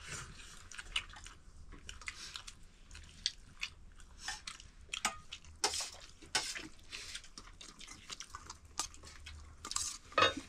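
People eating at a meal: chewing with irregular small clicks and crunches.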